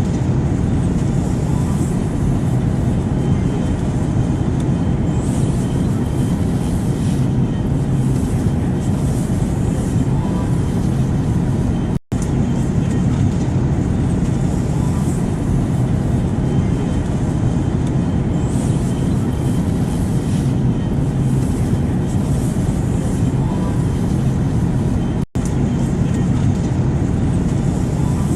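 Airplane cabin noise: a steady, deep rumble of jet engines and airflow with a fainter hiss above it, cutting out for an instant twice.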